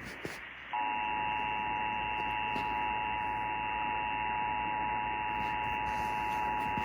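Emergency Alert System attention signal: two steady tones sounding together, starting suddenly under a second in and held unbroken, received off-air with radio hiss behind it. It is the alert tone that precedes an EAS message, here a required monthly test.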